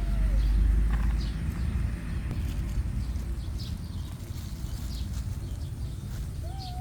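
A cat's meow tails off with a falling pitch just at the start, and another meow begins near the end. A steady low rumble runs underneath, heaviest in the first second.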